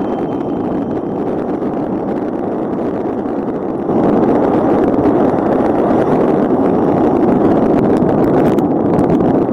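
Steady rushing wind and tyre noise from electric unicycles riding fast over a gravel trail, with no motor whine standing out. It grows louder about four seconds in.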